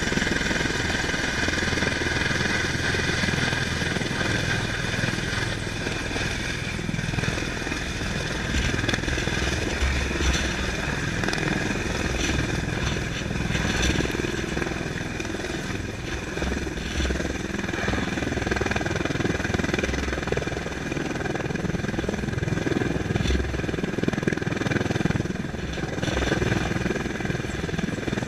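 Bell Boeing V-22 Osprey tiltrotor running: a steady turbine whine from its turboshaft engines over a low, rapid beating of the big proprotors.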